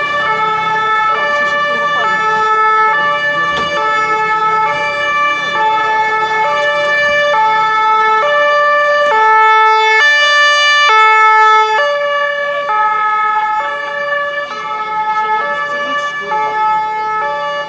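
Ambulance two-tone siren alternating evenly between a low and a high note, each held for under a second. It grows louder to a peak about ten seconds in as the ambulance draws up close, eases off, and is switched off right at the end.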